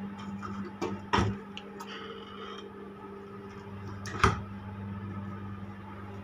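Steady low machinery hum of a tanker ship heard inside a crew cabin, with two sharp knocks, about a second in and about four seconds in.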